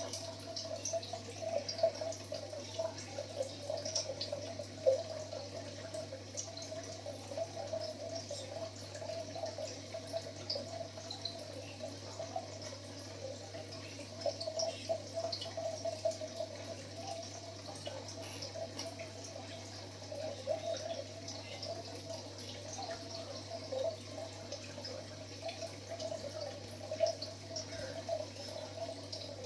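Baby palm civet chewing fried fish: irregular small wet clicks and smacks throughout, over a steady low hum.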